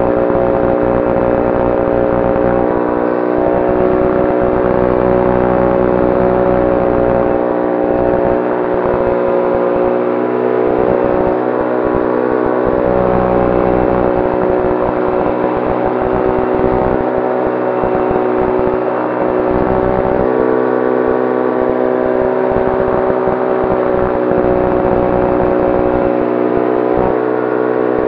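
Propeller of the E-gull electric motorglider running steadily in flight, a droning hum held at one pitch, with wind rushing over the cockpit.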